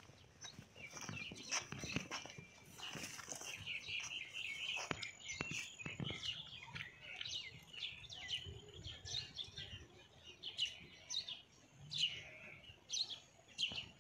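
Small birds chirping and calling in many short, quick notes, with a few low thumps underneath.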